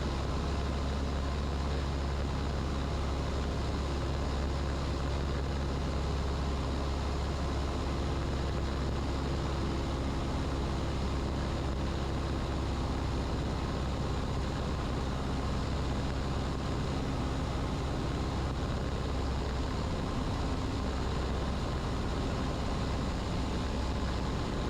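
Cessna 150's four-cylinder Continental O-200 engine and propeller droning steadily, heard inside the cockpit on final approach.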